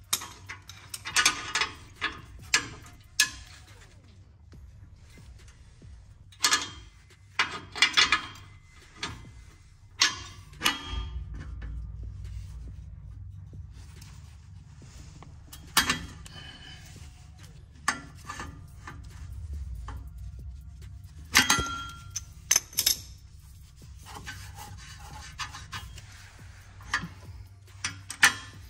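Hand tools on an exhaust under a car: irregular clicks of a ratcheting wrench and metal clanks as O2 sensors and exhaust bolts are loosened. A low hum runs through the middle stretch.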